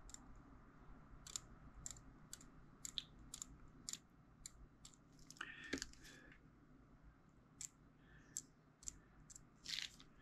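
Faint, irregular scratching and clicking of a small tool scraping paint off a plastic model part, with a few sharper scrapes about halfway through and near the end.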